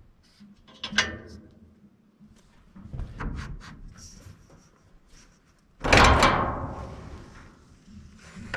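A sharp knock, a few lighter clatters, then one heavy bang about six seconds in that rings and dies away over about two seconds.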